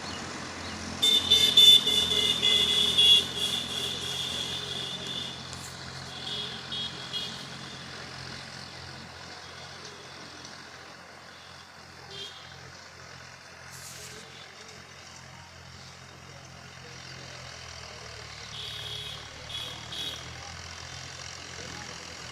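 Tractor engine running steadily while ploughing. Loud bursts of a high-pitched sound come about a second in and again, more faintly, near the end.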